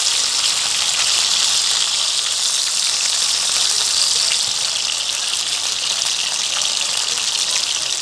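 Slices of homemade pork luncheon meat frying in hot oil in a nonstick pan over high heat: a steady sizzling hiss with fine crackles.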